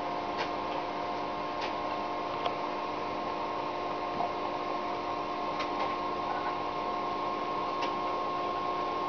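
Amateur radio receivers tuned to the ISS downlink giving a steady hum with hiss and no voice coming through, between the astronaut's answers. A few faint ticks sound through it.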